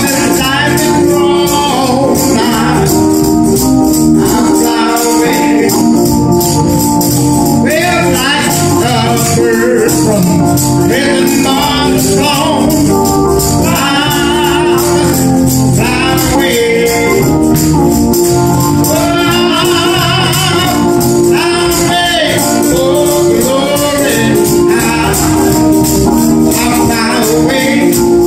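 A man singing a gospel song while accompanying himself on a church organ, which holds sustained chords beneath his voice, over a steady percussion beat.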